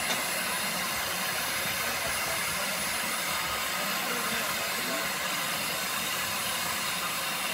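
Hawthorn Leslie 0-6-0 saddle tank steam locomotive standing with steam hissing steadily from its boiler.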